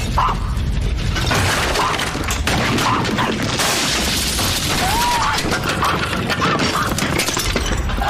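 Earthquake sound effect: a continuous low rumble with things rattling, crashing and shattering, and a few short cries from people.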